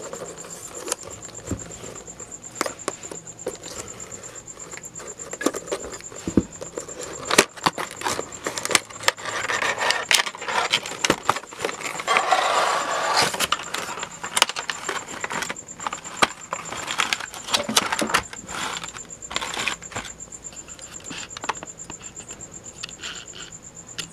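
Hands opening a cardboard retail box and handling its plastic tray: irregular clicks, taps and crinkling of cardboard and plastic, with a denser rustling stretch from about nine to fourteen seconds in. A steady high-pitched tone runs underneath.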